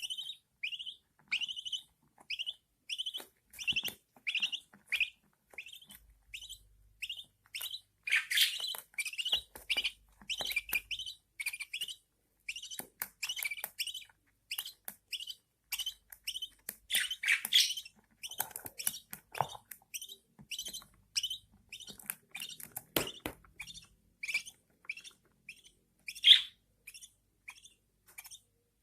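Budgerigar chicks giving a steady, rhythmic series of short, high begging cheeps, about two to three a second, with a few louder calls mixed in; the begging of nestlings being fed by their mother.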